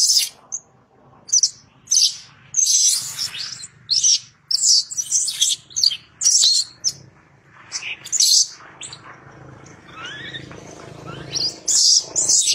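Infant macaque screaming in distress as its mother handles it and steps on it: many short, high-pitched shrieks in quick succession, a few rising in pitch near the end.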